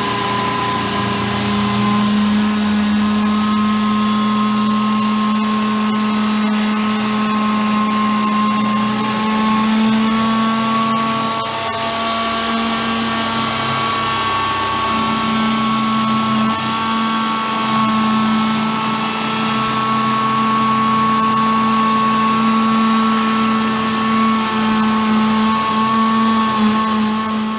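Portable on-site machining rig running steadily, its drive giving a continuous hum with several held tones that shift slightly in pitch.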